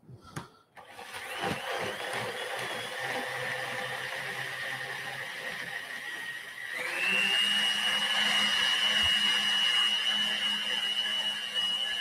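Blender running, churning water and coloured paper scraps into pulp slurry for papermaking. It starts about a second in, and about seven seconds in its whine rises in pitch and it runs louder.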